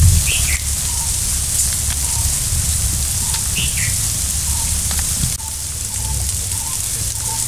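Forest ambience: a steady high hiss, with a bird giving a short falling call twice, about three seconds apart.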